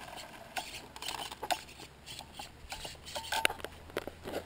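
RC truck crawling slowly over loose ground: scattered light clicks and rattles, with a faint low hum coming in about three seconds in.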